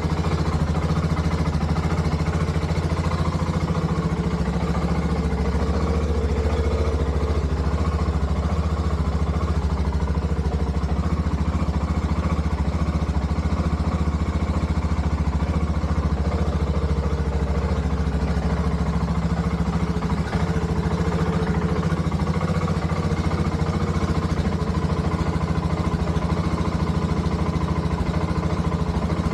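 BMW F650GS Dakar's single-cylinder four-stroke engine idling steadily just after starting, its idle shifting slightly a couple of times. It is running on old fuel, which the owner fears will make it cut out.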